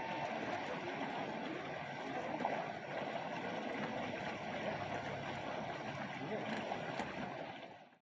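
Steady lakeside ambience of water at the shoreline, a constant wash of noise that fades out near the end.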